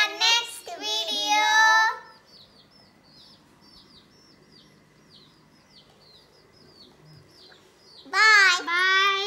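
Young girls' high-pitched sing-song voices, loud in the first two seconds and again near the end. In between, a bird chirps faintly over and over, a short falling chirp about twice a second.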